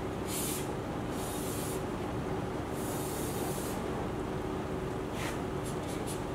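Chalk scraping on a blackboard while writing and drawing long lines: three strokes in the first four seconds, the third about a second long, then a few short quick strokes near the end. A steady low hum runs underneath.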